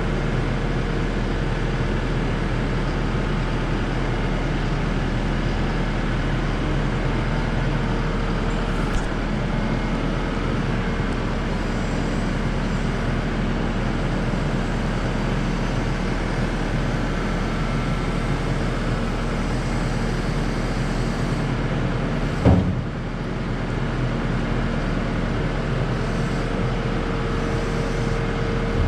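An engine running at a steady speed, with one sharp knock about 22 seconds in.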